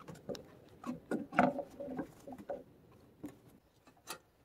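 Hands handling rubber hoses and plastic fittings in an engine bay: scattered clicks, taps and rubbing, busiest in the first two and a half seconds, then a few lone clicks.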